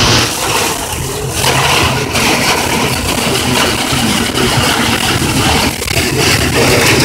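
Hail and heavy rain drumming on a car's roof and windshield, heard from inside the cabin: a loud, dense, steady clatter of small impacts.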